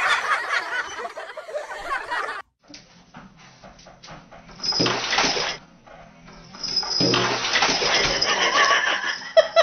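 A shrill, wavering scream-like sound that cuts off abruptly after about two seconds. Then water rushes in a bathtub in two bursts, the second one longer.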